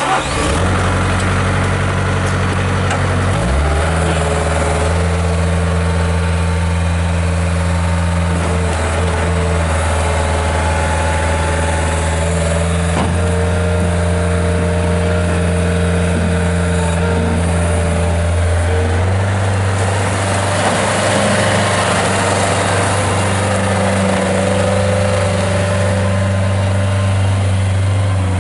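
Kubota diesel engine of a Bobcat S175 skid steer loader starting and then running steadily. Its note steps up a few seconds in and changes again about two-thirds of the way through.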